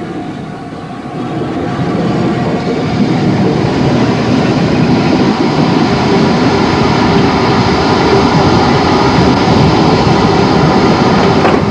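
Stanier Jubilee class three-cylinder steam locomotive moving slowly. Its sound swells about a second in and then runs steadily and loud.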